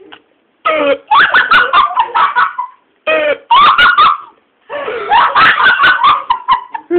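People laughing hard in three long bursts, with short breaks between them.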